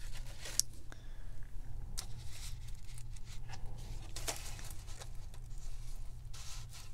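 Papers and thin stencils being handled and laid in place on a work surface: several short rustles and scuffs, over a steady low hum.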